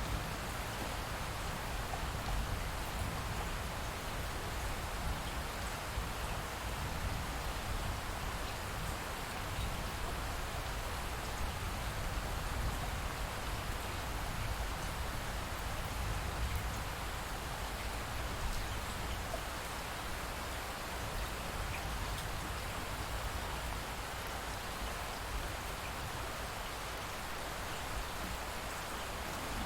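Light rain falling steadily: an even hiss of drops with no breaks.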